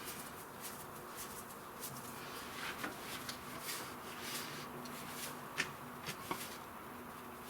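Light handling noises: scattered small clicks and taps over a faint steady hum, with one sharper click about five and a half seconds in.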